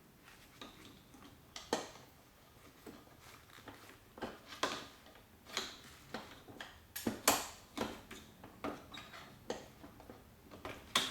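Irregular clicks, taps and light clinks of small metal parts being handled and fitted on a Genie screw-drive garage door opener's carriage, around the carriage bolt and snap pin. The loudest clicks come a little past the middle and just before the end.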